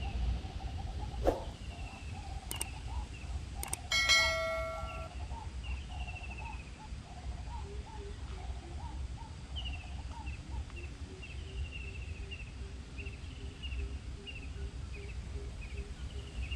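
Birds chirping in short, repeated calls over a low rumble. A few sharp clicks and a bell-like ding lasting about a second come about four seconds in.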